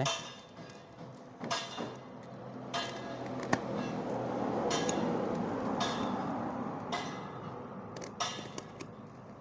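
Utility knife slitting packing tape and plastic wrap on a cardboard parcel: a rough crinkling rustle that swells in the middle, with several sharp clicks and knocks as the knife and box are handled.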